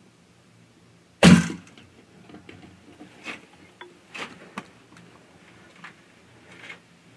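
A single sharp, loud thump about a second in, followed by scattered soft clicks and rustles.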